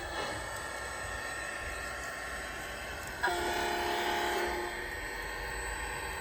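A horn blows once, a steady multi-note blast of about a second and a half, over a constant low background rumble.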